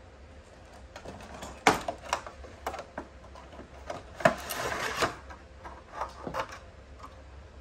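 Cardboard box and plastic blister tray of a Hot Wheels multi-car pack being handled and opened: a run of sharp clicks and taps, with a longer scraping rustle about halfway through as the tray slides out of the box.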